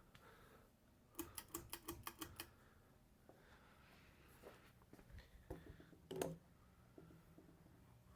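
Near silence, with a faint steady low hum. About a second in comes a quick run of about eight light clicks, typing-like, and a few scattered clicks and a short knock follow later.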